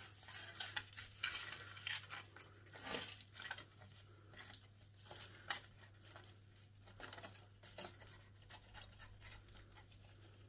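Aluminium hair foil crinkling and rustling in short, irregular bursts as gloved fingers handle a bleach-pasted strand of hair wrapped in it.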